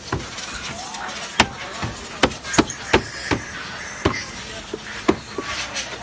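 BMW X3 rear door trim panel being struck by hand: a series of sharp, irregular knocks, about two a second.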